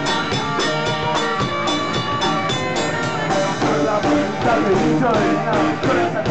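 Live punk rock band playing loudly: electric guitar over a steady drum-kit beat.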